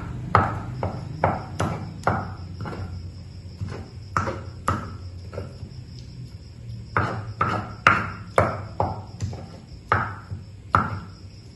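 Pestle knocking and grinding against a stone cobek mortar as a wet chilli-and-tomato sambal paste is ground: sharp knocks about two a second, with a short lull about halfway through.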